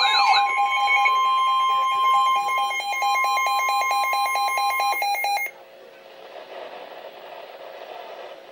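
Emergency Alert System attention signal: a steady two-tone alarm that takes over from the tail of a wailing siren sweep, then cuts off suddenly about five and a half seconds in, leaving only faint low-level sound.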